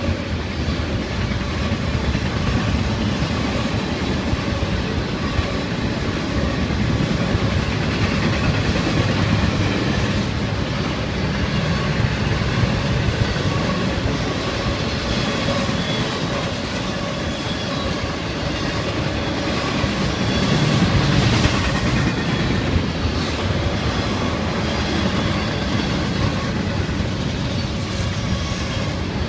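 Double-stack intermodal container train rolling past close by: a steady rumble of freight cars with wheels clicking over the rail joints, getting a little louder about two-thirds of the way through.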